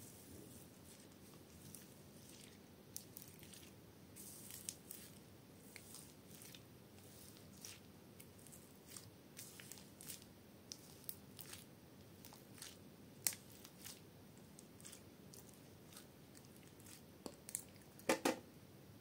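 Hands pressing, poking and kneading slime mixed with foam beads and sprinkles: scattered soft crackles, clicks and squishes, with a louder cluster of clicks near the end.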